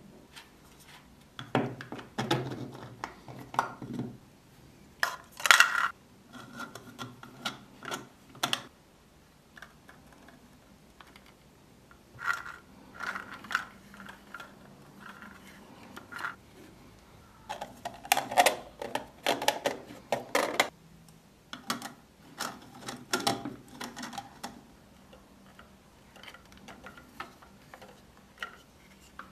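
3D-printed plastic parts of a Bat Signal lamp being handled and fitted together: irregular clicks, taps and scraping as the pieces are pressed and turned into place, with the loudest clatter in two spells.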